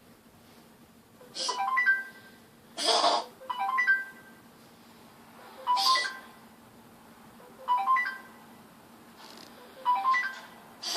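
A short electronic tune of a few clear plucked notes with a brief percussive hit, repeating at the same pitches about every two seconds, in the manner of a phone ringtone.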